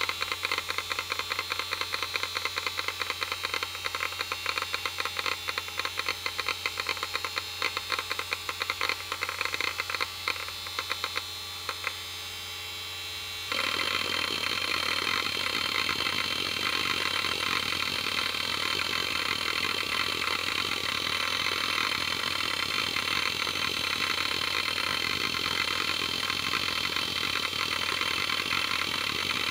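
Seagate ST51080N 1 GB SCSI hard drive: dense, fast head-seek clicking over a steady spindle hum while Windows 3.11 boots. The clicking thins out, then about thirteen seconds in a louder, continuous fast seek chatter starts suddenly as the drive runs a SpinRite 5 performance test.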